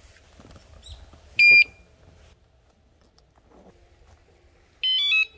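Electronic bicycle anti-theft alarm (뇌울림3.0) beeping: one short, loud beep about a second and a half in, then near the end a quick run of rising tones.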